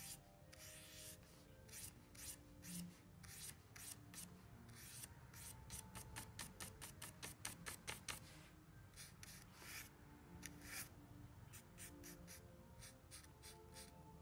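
Paintbrush tip dabbing and stroking on canvas in a run of short, quick scratchy strokes, faint and close-up, with a dense flurry of strokes about halfway through.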